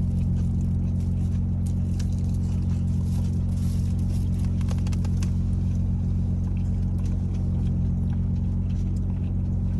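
Someone eating: scattered soft clicks and crackles of chewing and handling food, over a steady low hum.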